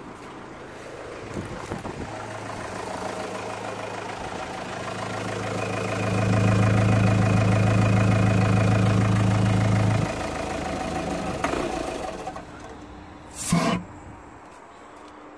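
Renault Modus 1.5 dCi four-cylinder diesel engine idling, louder for a few seconds, then cutting out suddenly about ten seconds in. A short knock follows near the end. The engine cannot be stopped with the ignition key, a fault the mechanic puts down to a faulty UPC module.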